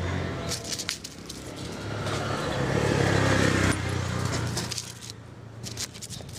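A motor vehicle passing by, its engine hum building to a peak about three seconds in and then dropping off suddenly, with a few short clicks and rustles around it.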